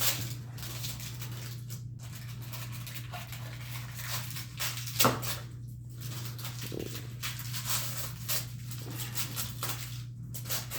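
Wrapping paper and tape being torn and crumpled as a gift is unwrapped: a run of rustling and tearing, loudest about five seconds in.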